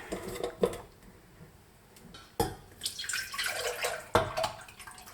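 Liquid sloshing and pouring in kitchenware, with three sharp knocks of a pot or jar.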